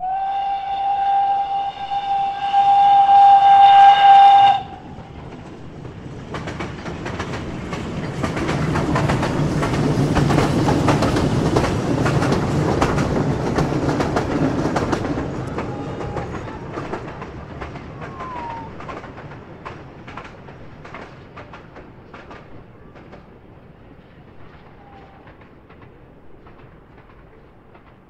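A heritage train sounds one long, steady whistle note, louder in its second half, that cuts off about four and a half seconds in. The train then approaches and passes, its wheels clattering rhythmically over the rail joints, loudest about ten to fifteen seconds in, and fades away.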